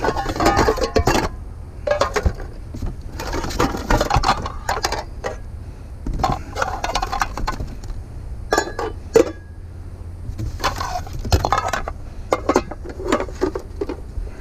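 Pots, pans and other hard junk clinking and clattering in irregular spells as a trash pile is rummaged through by hand, over a steady low rumble.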